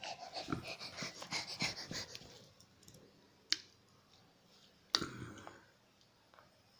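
Baby making short breathy, wheezy noises for about two seconds, then two sharp clicks a second and a half apart.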